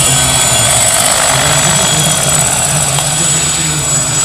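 Scale RC Lama helicopter in flight: a steady high turbine whine from its onboard turbine sound module over the noise of the rotor, a sound meant to imitate the real helicopter's turbine.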